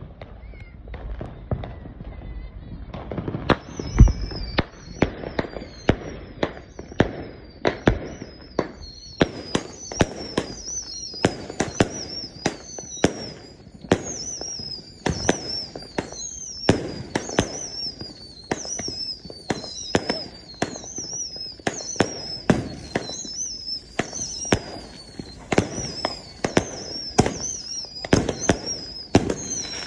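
A 100-shot consumer firework cake firing shot after shot, about two sharp bangs a second. From about three seconds in, each shot also carries a high whistle falling in pitch.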